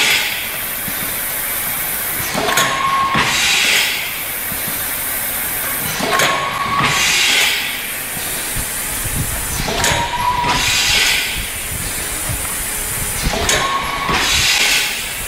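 JB QKL 250 thermoforming form-fill-seal cup machine running steadily and cycling about every three and a half seconds. Each cycle brings a brief tone and a burst of hiss lasting about a second.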